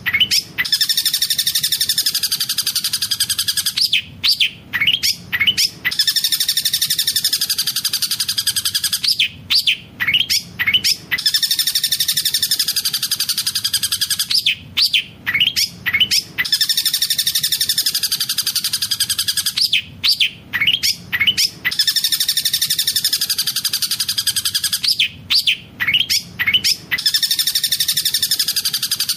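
Long-tailed shrike (cendet) song with kingfisher (tengkek buto) mimicry: a few sharp quick chirps, then a long fast rolling trill. The phrase repeats about every five seconds.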